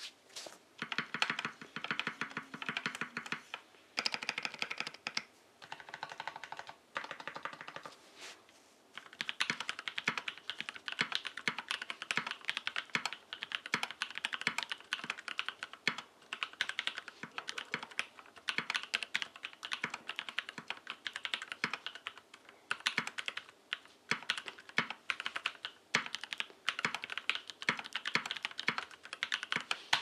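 Typing on a Think6.5 V2 mechanical keyboard with lubed NovelKeys x Kailh Cream linear switches, an FR4 plate and ePBT keycaps: rapid runs of key clacks, with brief pauses about four, six and nine seconds in.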